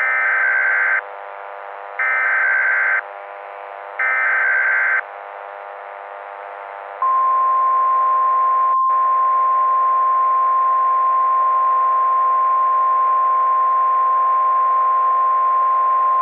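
Emergency Alert System broadcast opening: three one-second bursts of screeching digital header data, each about a second apart. A few seconds later a long, steady attention tone starts, all over a buzzy static hiss.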